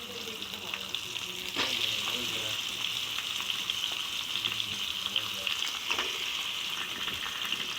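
Squash pieces sautéing in hot oil with garlic and tomato in a pan: a steady sizzle, with a spatula stirring and scraping the pan a couple of times.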